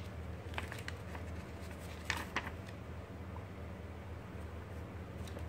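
Soft rustling and page-flicking of a paper instruction booklet being handled, a few short crinkles with the clearest a little after two seconds in, over a steady low hum.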